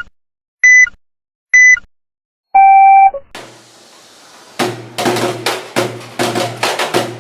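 Electronic countdown beeps: short, high beeps about a second apart, then one longer, lower tone. After it comes a brief swell of noise, and then music with a fast, regular percussion beat.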